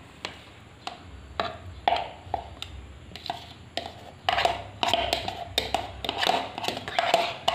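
A plastic spoon knocking and scraping against a plastic container while soft avocado is scooped into a glass blender jar. Scattered single clicks at first, then busier, almost continuous scraping and knocking from about four seconds in.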